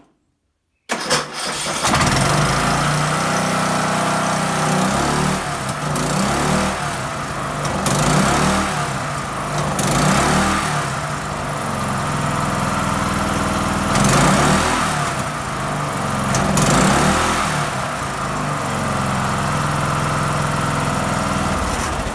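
John Deere L100 riding mower engine, with its governor removed, starting after a brief crank about a second in and then running loud. Its speed rises and falls several times as it is revved.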